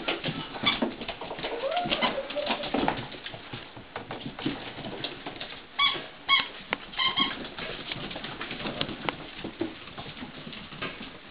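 Mastiff puppies (Dogue de Bordeaux × Cane Corso) romping on a parquet floor: claws clicking and scrabbling, small grunts and a short whine about two seconds in. A rubber squeaky toy squeaks three times about six to seven seconds in.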